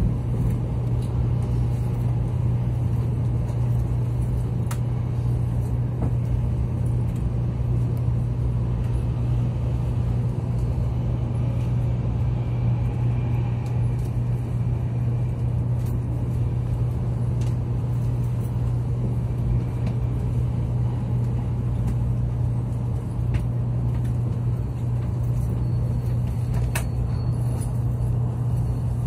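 Cabin noise inside a Taiwan High Speed Rail 700T train, a steady low rumble and hum as it runs through the underground tunnel and into the platform.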